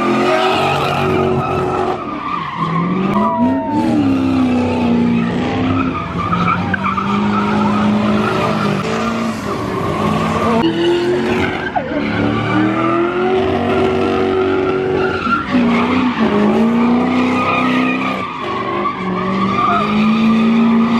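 A car's tyres screeching in a prolonged skid while its engine is held at high revs, the engine note repeatedly rising and dipping as the throttle is worked.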